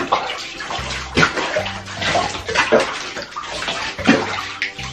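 Water splashing and sloshing in a bathtub as hands rub and rinse a wet cat standing in shallow water, with irregular short splashes.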